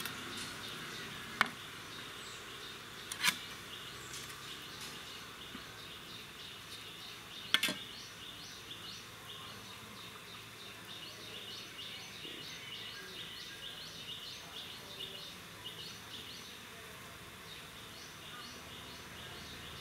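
Insects chirping steadily in a fast high pulsing pattern, broken three times by sharp metal clinks of steel idli plates and a steel serving plate being handled, the loudest about seven and a half seconds in.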